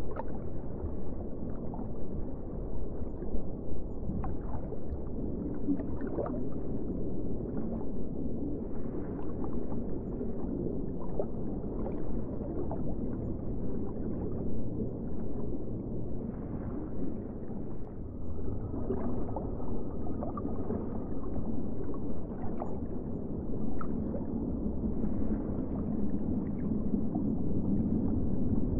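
Underwater ambience: a steady, muffled low rumble of water with scattered bubbling and gurgling.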